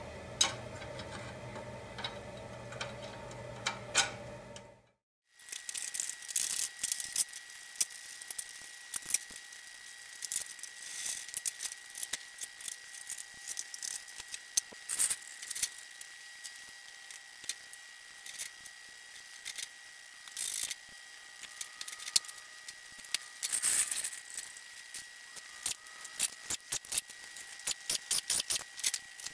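Hand-tool work on a garden tractor: scattered clicks, clinks and knocks of tools and metal parts, some ratchet-like, over a steady faint high whine. The sound breaks off briefly about five seconds in.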